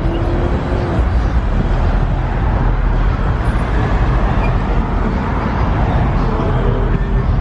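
Loud, steady car engine and road noise with a heavy low rumble.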